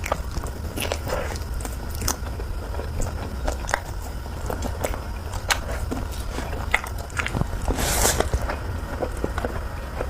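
Close-miked eating of spicy noodles: irregular wet chewing and biting clicks, with a longer rush of noise about eight seconds in, over a steady low hum.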